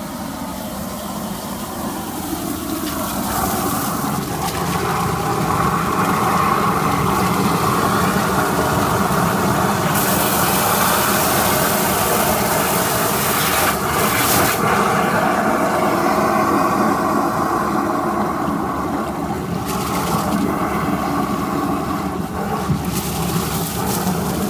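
Drain jetting in progress: water gushes and splashes steadily from a drain pipe into a brick chamber as the jetter hose clears root ingress, with the steady run of the jetting machine underneath. The gush swells louder after a few seconds and turns hissier for a while in the middle.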